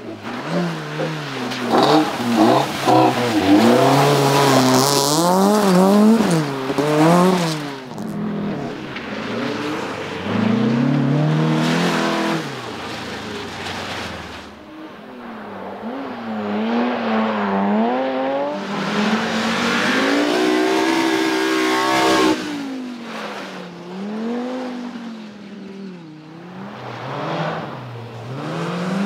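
Rally cars at full throttle on a stage, engines revving up and dropping back again and again through gear changes and corners. The sound comes as a run of separate passes with abrupt changes about 8, 14 and 22 seconds in.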